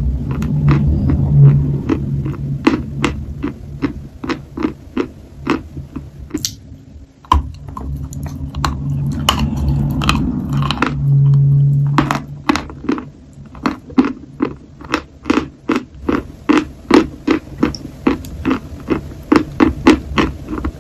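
Dry chalk being crunched and chewed close to the microphone: rapid crisp crunches, about three a second, with a short pause about seven seconds in. A low hum runs underneath at times.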